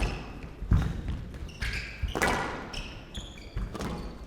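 Squash rally: sharp knocks of the ball being struck and hitting the court walls, about one a second, with short high squeaks of players' shoes on the court floor.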